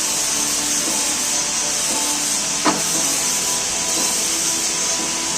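Metal lathe running with a steady hiss and hum, one sharp click about halfway through.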